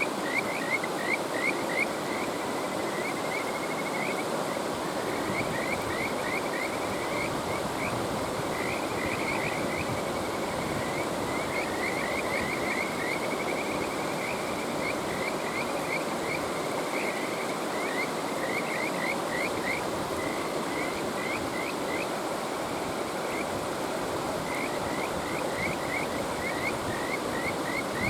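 Kajika frogs (Buergeria buergeri) calling in repeated runs of short, quick rising chirps, over the steady rush of a mountain stream.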